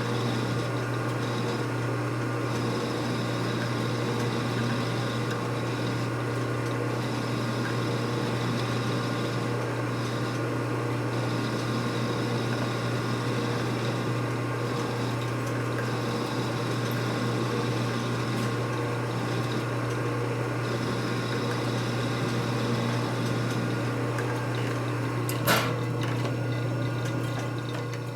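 Metal lathe running steadily with a constant low hum, a higher hiss that comes and goes every second or two, and one sharp click near the end.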